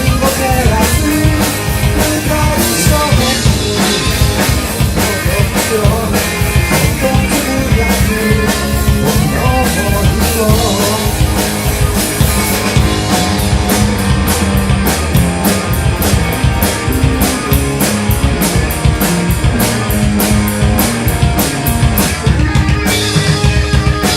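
Rock band playing: a drum kit with electric guitar and bass, with a steady driving beat and fast, even cymbal strokes in the second half.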